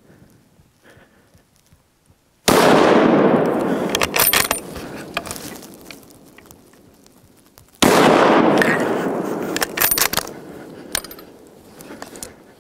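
Two rifle shots about five seconds apart. Each goes off with a sharp crack and then rolls away as a long echo lasting several seconds, with a few sharp cracks heard inside each fading echo.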